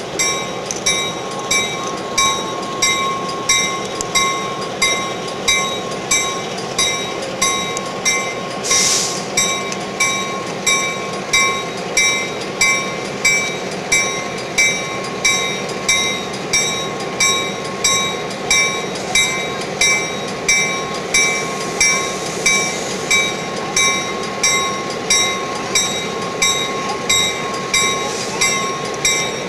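Diesel locomotive bell ringing steadily at about three strokes every two seconds, over the low rumble of the locomotive's idling engine. A short hiss of air cuts in about nine seconds in.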